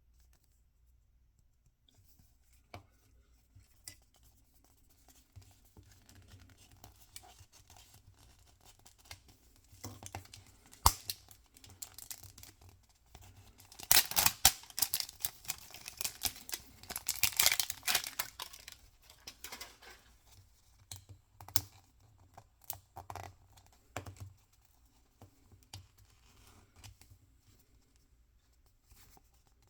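Toy packaging handled and torn open by hand: scattered light clicks and rustles, a sharp click about eleven seconds in, then a few seconds of loud tearing and crinkling in the middle before it settles back to soft handling noises.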